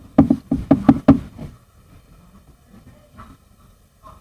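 A quick series of about six knocks or taps in the first second and a half, then only faint low noise.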